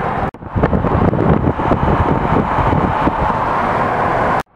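Car driving with a window open: wind buffeting the microphone over engine and road noise. The sound cuts out briefly about a third of a second in and again near the end.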